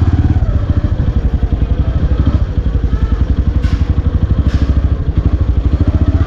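Motorcycle engine running at low revs as the bike rolls slowly, its exhaust giving a rapid, even pulsing beat. Two short hissy sounds come about a second apart near the middle.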